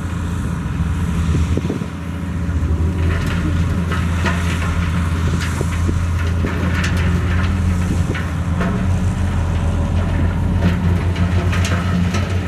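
Heavy diesel engine of earthmoving equipment running steadily under a deep hum, with scattered clattering and rattling starting about three seconds in.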